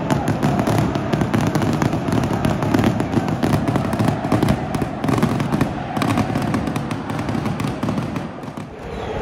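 Fireworks and firecrackers going off in a rapid, continuous crackle of sharp bangs, over the steady din of a packed stadium crowd.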